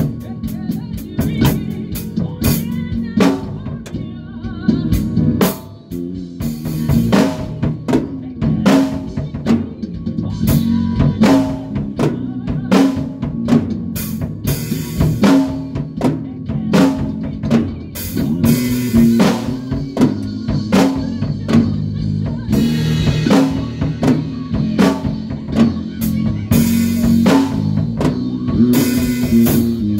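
A band rehearsing: a drum kit plays a steady beat with kick and snare hits over sustained low bass guitar notes.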